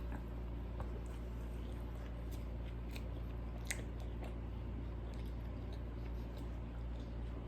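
A person chewing food close to the microphone, with a few soft wet mouth clicks, one sharper near the middle, over a steady low hum.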